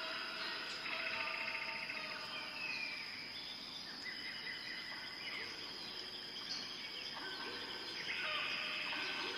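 Tropical forest ambience: a steady high-pitched insect drone under a chorus of many overlapping bird calls, chirps and whistles. A rapid pulsing trill stands out about a second in, and the calls thicken again near the end.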